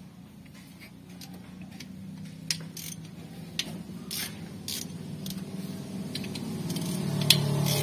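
Socket ratchet and extension working the 12 mm mounting bolts of a leaking water pump on a Mitsubishi L300 diesel engine: scattered ratchet clicks and metal taps. A steady low hum runs underneath and grows louder toward the end.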